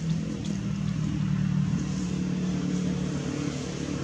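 A motor engine running steadily, a low hum that wavers slightly in pitch.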